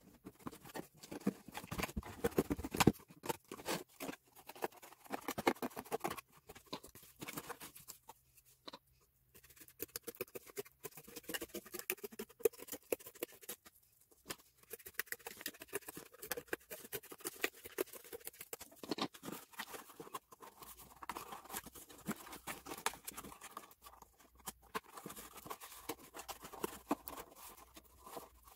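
Scissors cutting through corrugated cardboard, a dense irregular run of crunching snips, along with the cardboard scraping and rustling as the cut panel and box are handled. A few short pauses break it up.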